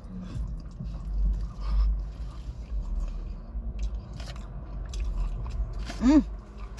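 Close-miked chewing and biting of food: wet mouth clicks and smacks over a low rumble. About six seconds in comes a short hummed sound that rises and falls in pitch.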